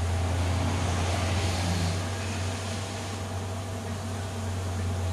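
A swarm of western honeybees in flight, a dense steady buzz over a strong low hum.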